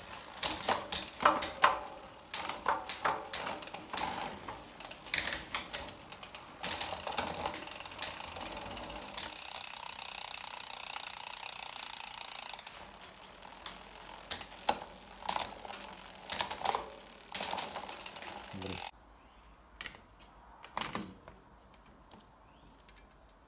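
Bicycle being worked on: quick ratcheting clicks and light clatter of metal parts and tools, then a steady whirring for about six seconds in the middle, as of the chain and rear wheel spinning while the derailleur is adjusted. The sound drops off sharply near the end, leaving a few faint clicks.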